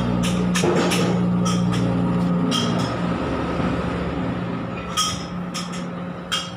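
Scattered sharp metallic clinks of a hammer striking steel, about eight in all, spread irregularly over a steady low machine hum.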